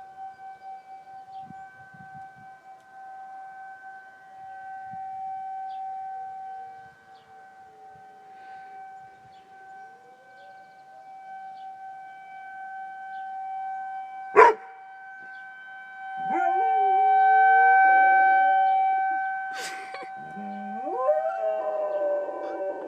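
Tornado siren sounding one steady tone that swells and fades in loudness, with a dog howling along in rising and falling howls during the last several seconds. A sharp click about two-thirds of the way in.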